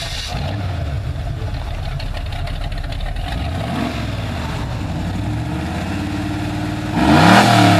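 Car engine running, with the revs rising briefly about halfway through and a louder surge of revving near the end.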